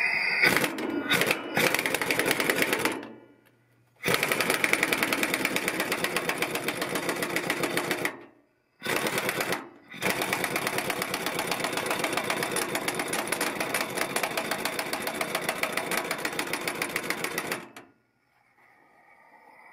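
Large Ingersoll Rand air impact wrench hammering on a nut in several bursts, the longest running about seven seconds, with short pauses between them.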